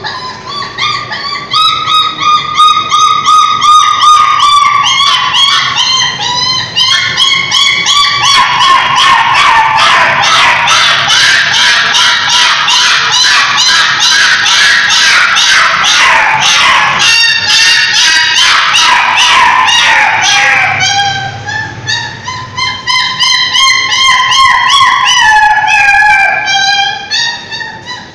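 Dog whining and crying in long, high-pitched wailing cries that slide up and down in pitch. Through the middle the crying turns into a fast, choppy run of short yips before the long wails return.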